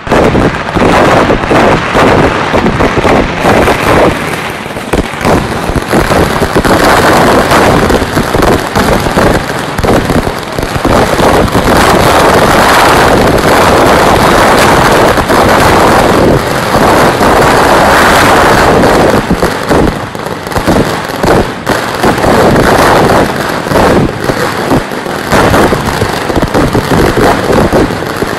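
A barrage of ground-level firecrackers going off in rapid, unbroken succession, loud bangs and crackling that start suddenly and ease slightly in places before building again.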